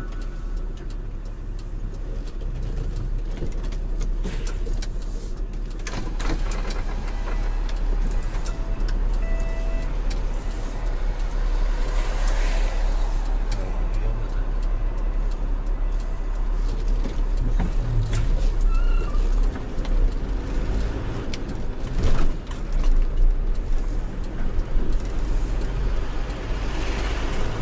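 Cargo truck's diesel engine and road noise heard from inside the cab while driving, a steady low rumble with scattered rattles and clicks.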